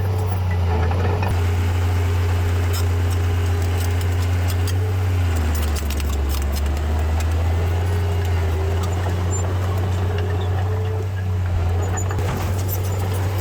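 The heavy diesel engine of earthmoving machinery runs steadily as a deep drone. Its pitch sags for a second or two about five seconds in and then picks back up. Scattered metallic clanks and rattles sound through the middle and again near the end.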